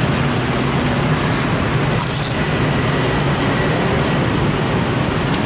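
Steady street traffic noise with a constant low engine hum underneath.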